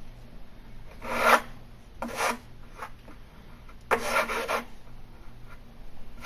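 A wooden block wrapped in adhesive-backed sandpaper being rubbed along a panel edge in short strokes, sanding off a remaining rough spot to prepare the edge for edge band. It comes as a few separate scratchy passes: one about a second in, another at about two seconds, and a quicker run of strokes near four seconds.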